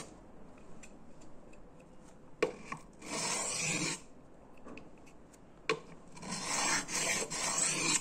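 Small Victorinox Waiter pocket-knife blade drawn across a wet 1000-grit diamond sharpening plate: a sharp click as the edge touches down, then a rasping scrape, twice. These are light passes to take off the burr.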